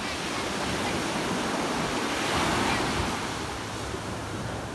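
Small surf waves breaking and washing up a sandy beach, a steady hiss that swells to its loudest about halfway through and then eases off.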